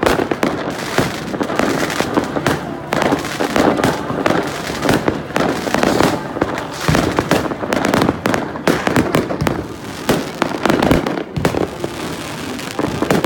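Many fireworks going off one after another: a dense, continuous run of bangs, pops and crackles.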